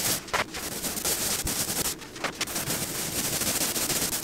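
Paint roller rolling wet wall paint onto a wall: a steady crackling hiss that breaks off briefly twice as the strokes change.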